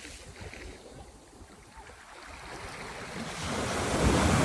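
Surf breaking on a beach, swelling louder in the last second or two, with wind buffeting the microphone.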